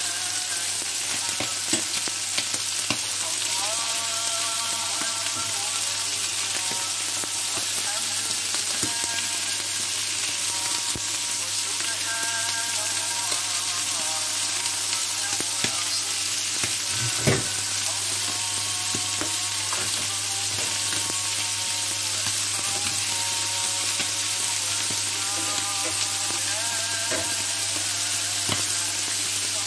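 Caul-fat-wrapped liver skewers (boulfaf) sizzling steadily on a hot electric griddle, with a few light knocks and one sharper one about 17 seconds in as the skewers are handled.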